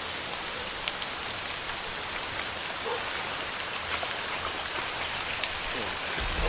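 Steady rain falling on umbrellas and flooded ground, with scattered ticks of single drops.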